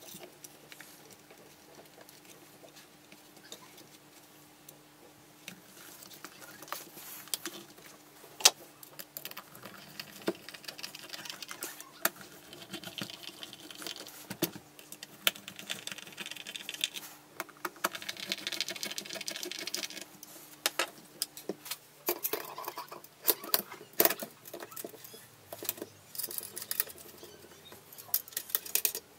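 Hand assembly of small metal parts: irregular clicks, taps and scraping as screws are driven and a metal plate is fitted onto a wooden rifle stock, with a faint steady hum underneath.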